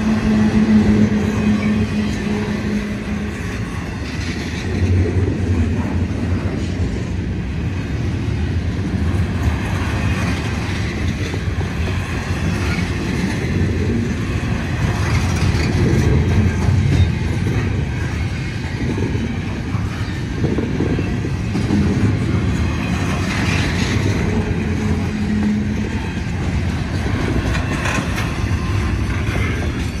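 Norfolk Southern double-stack intermodal train's container well cars rolling past: a steady rumble of steel wheels on rail. A low hum rises above it at the start and again briefly near the end.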